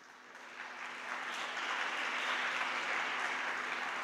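Applause, building over the first second and then steady.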